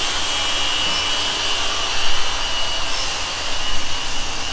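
High-speed rotary polishers running steadily as they cut and buff an aluminum truck body: a steady high whine over a loud hiss.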